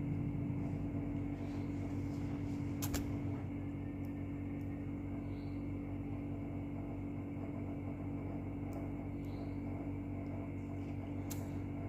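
Steady low hum with a few faint clicks.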